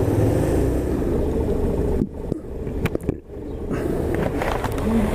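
Suzuki VanVan 125's single-cylinder engine running under way. About two seconds in, the engine note drops away for a couple of seconds with a few sharp clicks, then picks back up.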